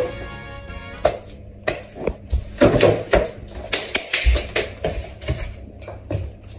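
Handling noise: a run of irregular light taps and knocks, about a dozen short hits spread unevenly through the few seconds.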